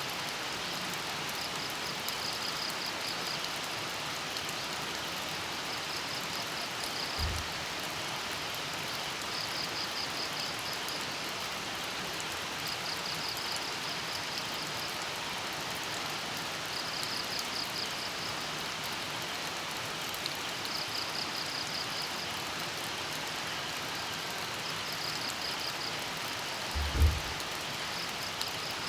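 Steady rain falling, with a cricket chirping in trains of rapid pulses that come back about every three to four seconds. Two dull low thumps: a faint one about a quarter of the way in and a louder one near the end.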